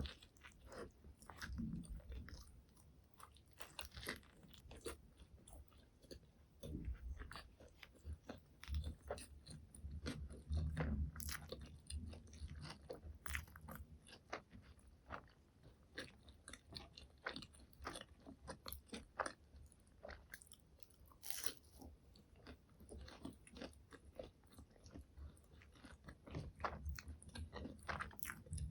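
Close-miked eating of fast food: repeated wet crunching bites and chewing, with many small crackles and clicks and a few low thuds of chewing.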